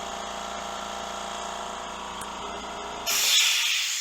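California Air Tools 10-gallon ultra quiet oil-free air compressor running with a steady motor-and-pump hum. About three seconds in the motor stops and a loud burst of air hiss follows, then begins to fade.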